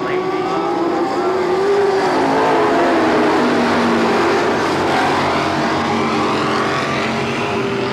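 A pack of dirt-track stock cars running at racing speed around the oval, several engine notes overlapping and rising and falling in pitch as the cars pass.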